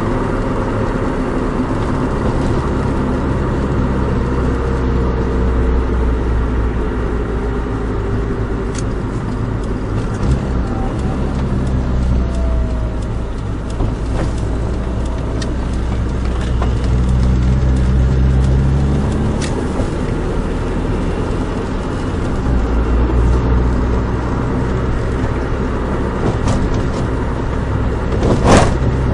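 Nissan Micra 1.3's engine and road noise while driving, with the engine note rising and falling as it speeds up and changes gear. There is a short, louder noise near the end.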